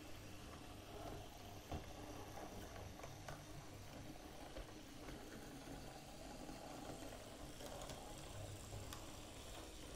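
Small electric motor of an OO gauge model locomotive running with its train, a faint steady whirr with a few light clicks.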